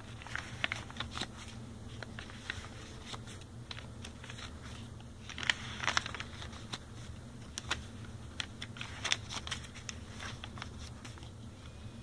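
Paper pages and cards of a handmade junk journal being turned by hand: light rustles and flicks of stiff paper, with a louder flurry about halfway through.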